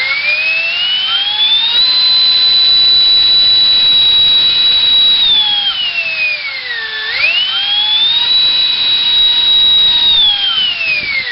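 Electric ducted fan, a 70 mm four-blade rotor on a GoolRC 2968 3800 kV brushless inrunner, throttled up to a loud high-pitched whine and held at full power. About five seconds in it is eased back, then spooled up to full again, and near the end it winds down. It runs without any vibration sound.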